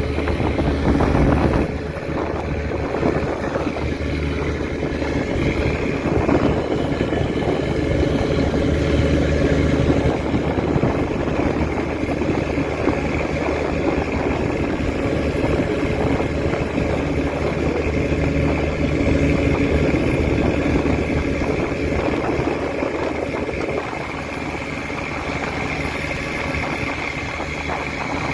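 Mechanised fishing boat's engine running steadily at a constant speed.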